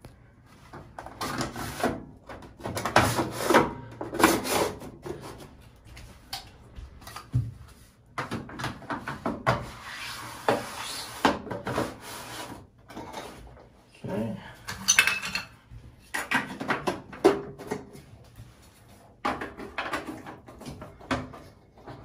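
Hands fitting plastic light-fixture parts and a cylindrical diffuser cover onto a medicine cabinet's side light: irregular scrapes, rubbing, clicks and knocks.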